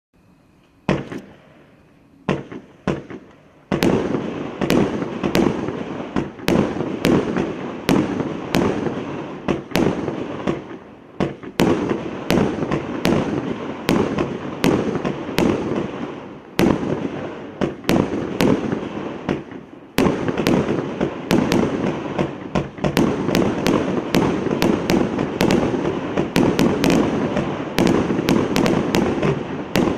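A 49-shot consumer firework cake firing its tubes in quick succession: sharp launch reports and shell bursts. It starts with a few spaced shots, then about four seconds in becomes a rapid, near-continuous barrage with only short lulls.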